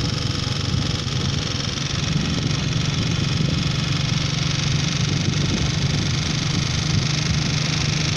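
Vehicle driving on a paved road: a steady engine hum with tyre and wind noise, the engine note growing a little stronger about two seconds in.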